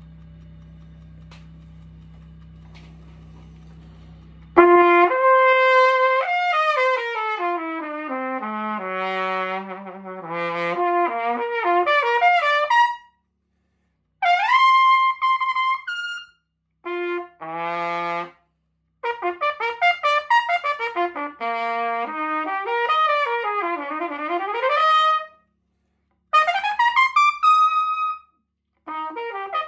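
Steady low hum of a pressure washer for the first few seconds, then an early-1970s Olds Pinto trumpet played in short phrases: fast runs and slurs sweeping down and up the range, with some high held notes and brief pauses between phrases.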